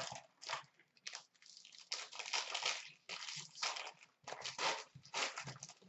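Upper Deck Black hockey card box being opened by hand and the pack pulled out: irregular crinkling and rustling of cardboard and wrapper, in short bursts with small gaps.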